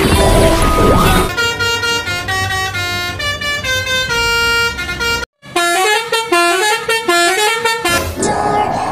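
Multi-tone Basuri telolet bus horn playing a melody of stepped notes, in two phrases broken by a sudden cut about five seconds in; the second phrase has gliding notes. It follows about a second of louder, busier music and noise.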